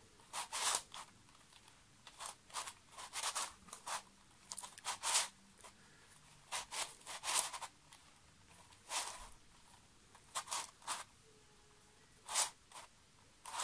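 Faces of a large 3D-printed dodecahedral twisty puzzle being turned by hand: short plastic scraping clicks, in irregular bunches with brief pauses between.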